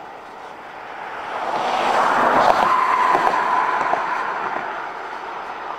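Freight train cars rolling past on the rails. The noise swells to a peak about halfway through, with a thin steady whine, then eases off.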